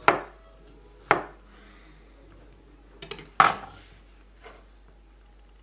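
Chef's knife slicing strawberries and knocking on a wooden cutting board, two sharp strokes about a second apart. About three seconds in comes a short rattle and then a louder knock as the knife is laid down on the board.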